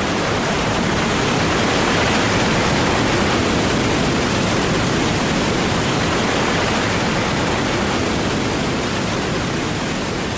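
A river in wet-season flood rushing over rapids: a loud, steady rush of churning white water, swelling slightly over the first couple of seconds.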